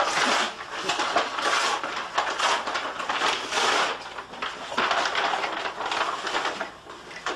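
Rustling and handling noise in repeated short bursts, about one or two a second, with no voices.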